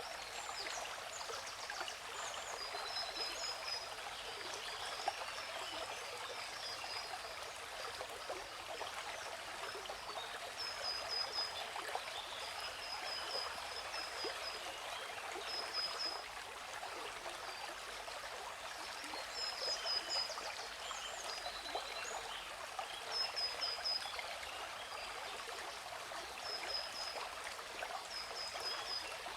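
Steady rush of falling water from a waterfall, with a bird giving short high chirps in clusters several times over it.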